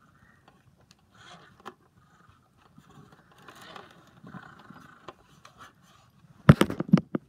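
Scratching and clattering on a plastic novelty singing fish: faint scrapes and ticks at first, then a loud burst of rattling knocks and scraping near the end.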